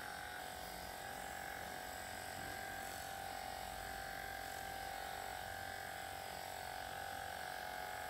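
Handheld electric percussion massager buzzing steadily with a constant pitch as it is pressed into the muscles of the upper back and shoulder.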